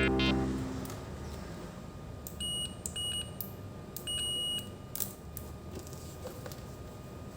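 Continuity buzzer of a newly assembled digital multimeter kit beeping three times with a steady high tone: two short beeps, then a longer one. A few light clicks fall around the beeps.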